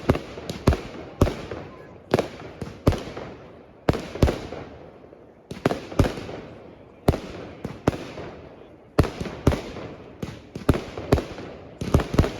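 Fireworks going off in a steady string of sharp bangs, often two or three close together, each trailing off in a short echo.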